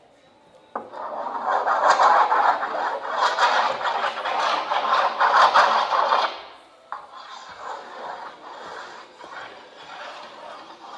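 Electronically amplified scratching of hands making marks on paper laid along a long table: loud, dense, rapid strokes that start suddenly about a second in and cut off abruptly around six seconds, then resume more quietly.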